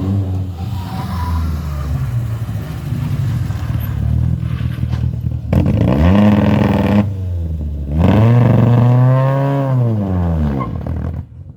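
Historic rally car engines revving hard on a special stage, in short back-to-back passes. The engine note climbs steeply about halfway through, and near the end it rises and then falls as a car goes by at high revs.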